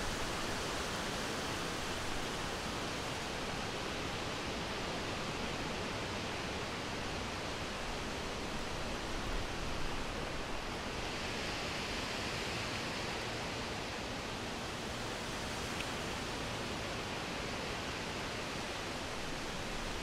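Steady wind: a continuous, even hiss with no gusts or breaks.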